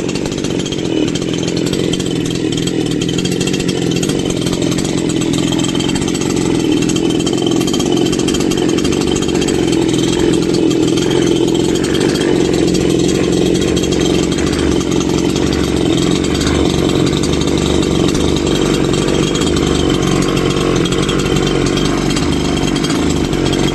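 Kell 58cc petrol chainsaw engine running steadily, test-run just after being rebuilt with a new piston kit to replace a badly damaged piston.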